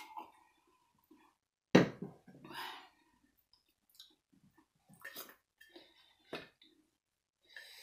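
Mealtime table sounds: a sharp knock about two seconds in, followed by a brief mouth or voice sound, then a few light clicks of a fork against a metal platter.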